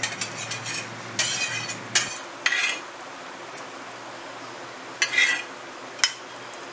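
Metal spatula scraping fried brinjal slices off an iron dosa tawa and clinking against a steel plate, in about six short scrapes and knocks, over a faint steady sizzle.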